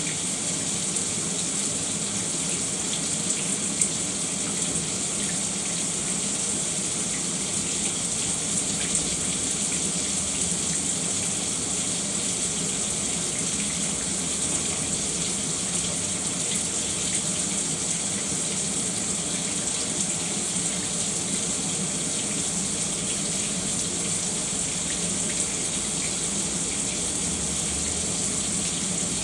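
Shower running steadily, an even spray of water with small splashes and no change throughout.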